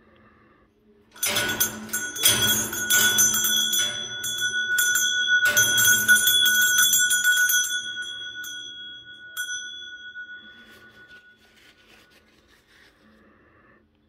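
A small brass bell in an African grey parrot's cage, rung hard and fast by the parrot to get attention: a jangle of rapid strikes starts about a second in and runs for some six seconds. One last strike follows, and the bell's ringing dies away.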